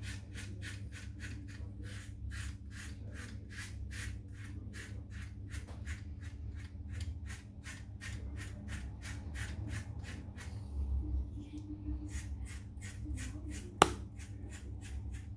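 Leaf razor scraping two days' stubble off a lathered scalp against the grain, in quick short strokes about three a second. The strokes stop for about a second and a half around ten seconds in, then resume, and a single sharp click comes near the end.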